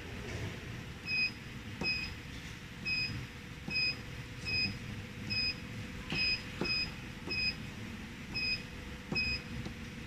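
Touchscreen control panel of a filling and crimping machine beeping once for each tap as menu keys are pressed: eleven short, high beeps at uneven intervals of about one a second, over a faint steady hum.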